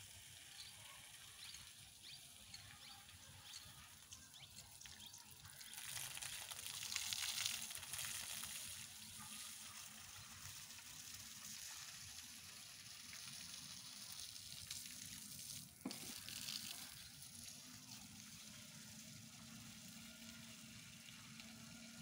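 Faint steady hiss of outdoor background noise that swells for a few seconds about a quarter of the way in, with a single sharp click a little past the middle.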